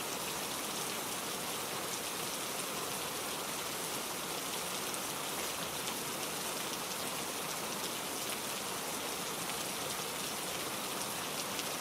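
Steady rain with a dense patter of drops. No thunder is heard.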